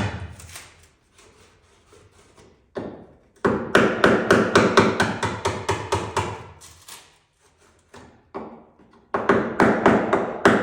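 Runs of quick, sharp tapping strikes, a few a second with short pauses between the runs: a tool being driven behind the glued fiberglass rear quarter panel of a 1963 Corvette to break it loose from its bonding strip.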